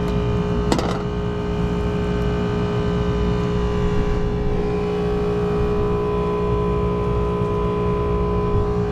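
Steady drone of rooftop air-conditioning equipment running, a low hum with a steady whine of several tones over it. A single short sharp click about a second in.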